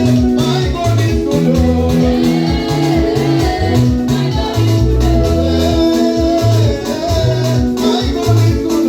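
Live worship music: a sung melody over held electronic keyboard chords, with bass and drums keeping a steady beat.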